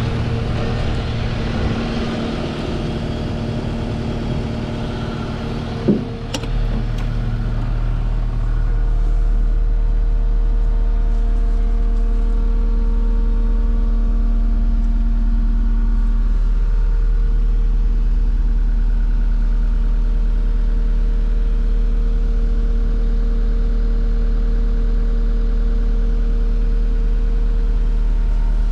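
Case SR240 skid steer's diesel engine running steadily. There is a sharp clack about six seconds in, and the engine note turns louder and deeper from about eight seconds on.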